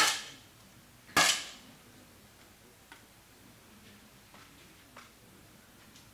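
Two 10 m air rifle shots about a second apart, each a sharp pop with a short echo tail. A few faint clicks follow.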